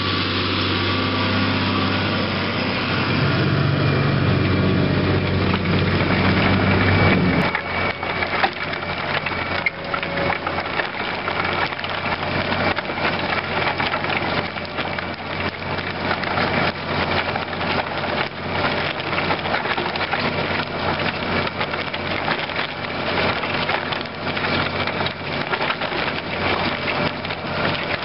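Massey Ferguson 6475 tractor engine running steadily, its pitch stepping up a little about three seconds in. About seven seconds in, the sound changes abruptly to a dense crackling and crunching that continues, with the engine faint underneath.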